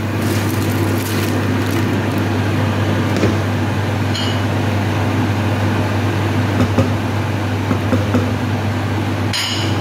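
Steady low mechanical hum of a fan or motor, over a pot of broth at a rolling boil as dry rice is poured in and stirred.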